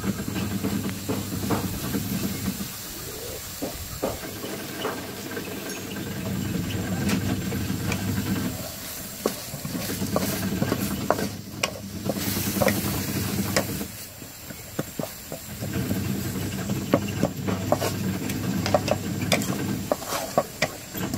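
Wooden spatula stirring and scraping a crumbly minced snail stir-fry around a metal wok, with many quick scrapes and taps over a steady frying hiss.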